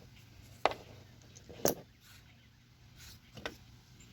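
A few light clicks and knocks, three in all, as metal hand tools are handled and set down, over a faint steady background hum.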